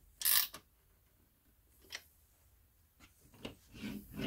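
GearWrench ratcheting wrench clicking in a quick burst as it is swung back on a bolt, with a fainter burst near two seconds. Near the end come a few light clicks and rattles as the assembled metal stool is handled.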